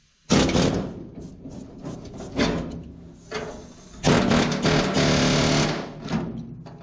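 Pneumatic air hammer with a chisel bit, cutting through a sheet-metal channel on a truck bedside. It runs in short bursts, then in one longer steady burst of almost two seconds.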